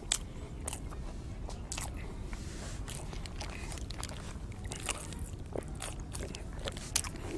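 A person biting and chewing fried street-food snacks close to a clip-on microphone, with sharp crunches and clicks scattered throughout.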